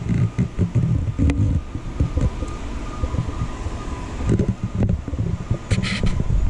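Uneven, gusty low rumble of air and handling noise on a handheld camera's microphone, over a faint steady hum. A brief hiss comes near the end.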